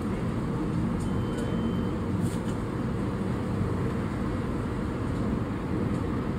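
Steady low rumble of background noise, with a faint brief high tone about a second in.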